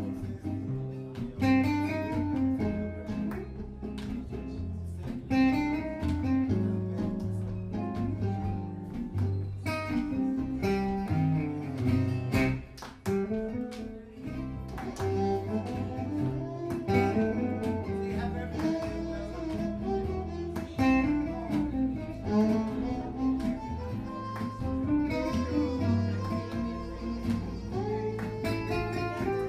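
Gypsy jazz band playing live: a lead acoustic guitar picks the melody over rhythm guitar chords and double bass. A violin comes in with long bowed notes in the latter part.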